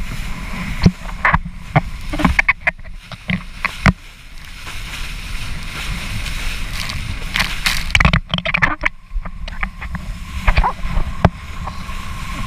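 Wind rumbling on the microphone while a kiteboard skims over choppy water, with irregular sharp splashes and slaps of spray.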